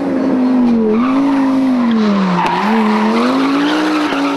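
Rally car engine at high revs, its pitch swinging up and down: it falls to a low point a little past halfway, then climbs again. Tyres skid and scrabble on the road surface underneath.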